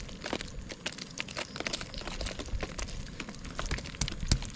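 Irregular light clicks and crackles, a crinkling rustle, with one sharper click about four seconds in.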